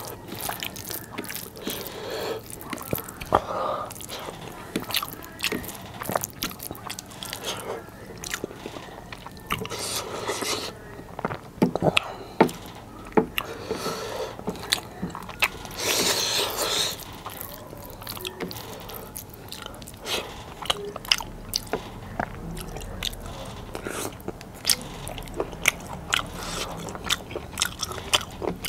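Close-miked eating of biryani rice and curried chicken by hand: steady wet chewing with many sharp, irregular mouth clicks. A longer, louder stretch of chewing comes a little past halfway.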